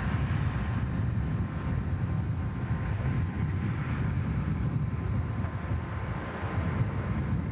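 Steady rumble of a moving train, with a faint steady whine running through it.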